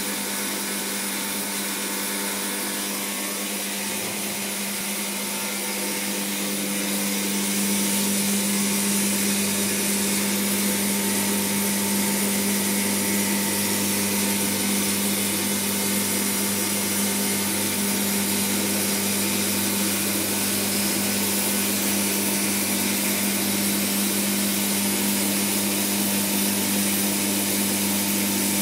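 Neuvator II film cleaning machine running: a steady motor hum under a constant hiss, growing a little louder about seven seconds in.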